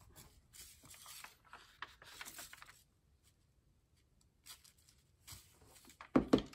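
Sheets of paper and plastic rustling and sliding as they are handled, in a run of short bursts for about three seconds, then a few quieter scrapes, and a single thump near the end.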